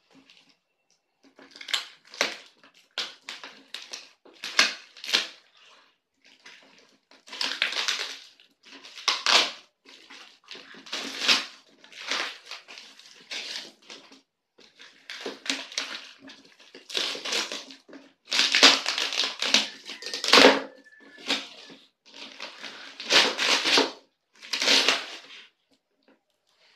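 Packing tape being ripped and peeled off a taped-up plastic box, with the newspaper wrapping crinkling and tearing. It comes in irregular bursts with short pauses between them.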